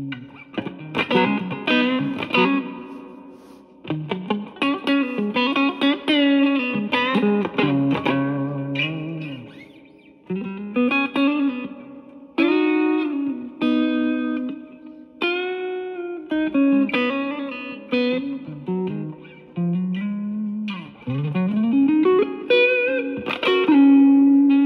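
Electric guitar, a single-coil Stratocaster played through a Yamaha THR10C modeling amp on its US Blues setting. It plays lead phrases of single notes with frequent string bends, separated by short pauses.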